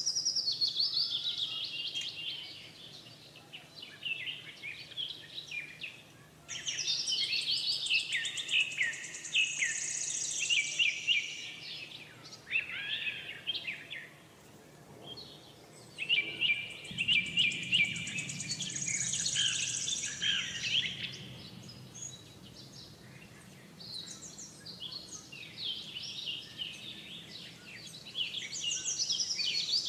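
Birds chirping and singing in high phrases a few seconds long, with short pauses between.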